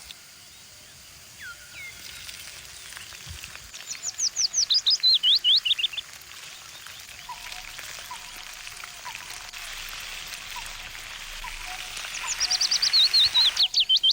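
Birdsong: two loud phrases of rapid notes that step down in pitch, one about four seconds in and another near the end, with softer chirps over a steady outdoor hiss.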